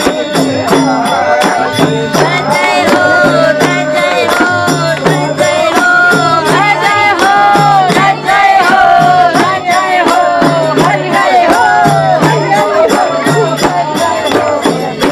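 A folk-style devotional song: a sung melody over a steady jingling percussion beat and a repeating low bass pulse.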